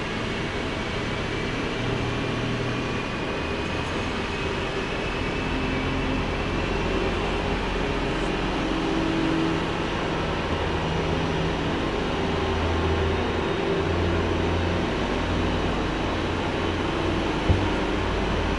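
Boeing 777 jet airliner being pushed back, heard at a distance: a steady low rumble and a faint whine that rises slowly in pitch over the first several seconds. A short click comes near the end.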